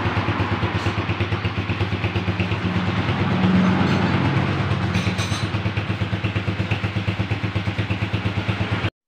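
Racal 150 motorcycle's single-cylinder four-stroke engine idling with an even, rapid pulse, getting a little louder for a couple of seconds midway. It cuts off abruptly near the end.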